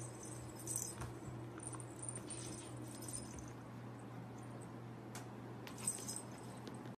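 Two cats play-fighting on a shaggy rug: faint scuffling and rustling with light high clinks, over a steady low hum.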